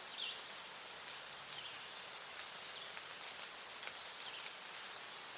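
Outdoor nature ambience: a steady hiss with short high chirps repeating about once a second and faint scattered ticks.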